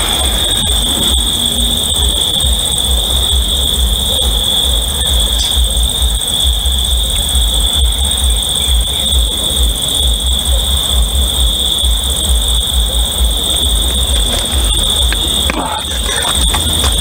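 A continuous high-pitched whine that holds one pitch, dipping briefly near the end, over an uneven low rumble of wind buffeting the microphone.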